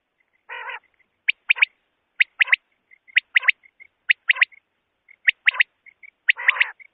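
Common quail giving its three-note "wet-my-lips" call, a sharp phrase repeated about once a second, with soft short notes between phrases. A short harsh noise sounds about half a second in and again near the end.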